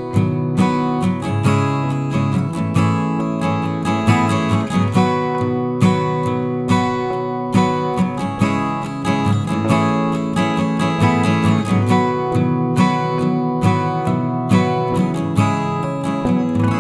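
Background music: acoustic guitar picked and strummed, with frequent plucked notes.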